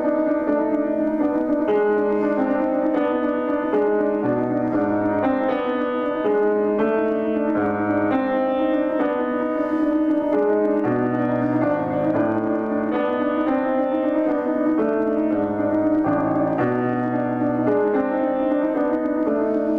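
Solo grand piano playing a contemporary étude: a fast, unbroken stream of notes in the middle register, with low bass notes coming in every few seconds.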